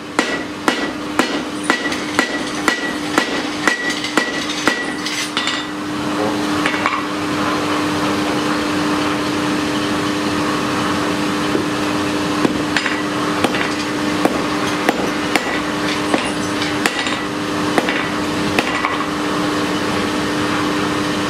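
Blacksmith's hand hammer striking hot iron on an anvil, quick regular blows about three a second, each with a ringing note from the anvil. The blows stop after about five seconds, and a louder steady mechanical hum takes over, with a few scattered light taps.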